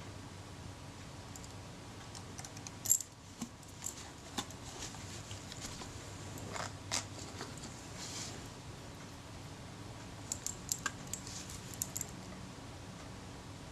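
Small metal clicks and taps from a screwdriver and tiny screws being fitted into the end of a camera's metal body. There is one sharper click about three seconds in and a quick run of small clicks near the end, over a faint steady hum.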